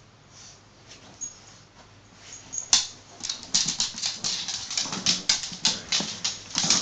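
Dogs playing up close: a few faint, high whimpers, then about three seconds in a sharp click followed by a quick, loud run of snuffling and scuffling as a shar pei comes right up to the microphone.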